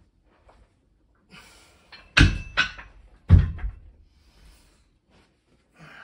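Two plate-loaded dumbbells dropped onto a carpeted floor one after the other at the end of a bench press set: two heavy thuds about a second apart, each followed by a smaller knock as the weights settle. Heavy breathing around them.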